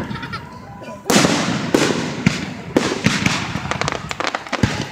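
Aerial fireworks: a loud shell burst about a second in, followed by a string of sharp bangs and crackling pops as more shells go off.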